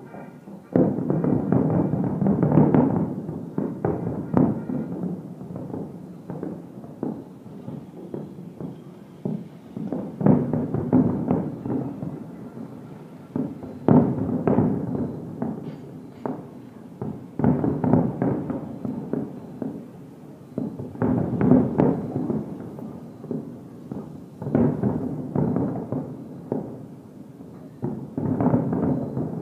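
Distant aerial fireworks display: clusters of rapid shell-burst bangs every few seconds, heard from afar so they come through as dull booms with some crackle.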